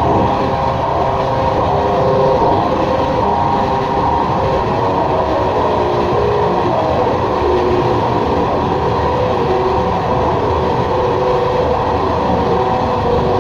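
Experimental drone music: a dense, steady wash of rumbling noise with faint sustained tones drifting through it.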